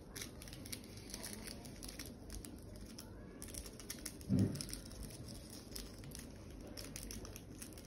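Small paper seasoning sachet of chilli flakes crinkling as it is torn open, then a light patter of flakes being shaken out onto a pizza. A short low hum from a voice comes about four seconds in.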